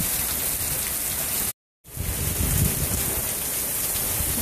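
Heavy rain pouring on pavement and parked cars in a strong thunderstorm. The sound cuts out for a split second about a second and a half in; after it, a low, uneven rumble joins the rain.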